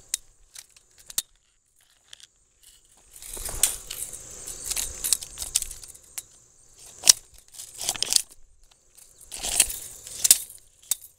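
Rustling handling noise and scattered sharp metallic clicks and rattles from a tape measure being carried with its blade pulled out, with a quiet stretch about two seconds in before the rustling picks up.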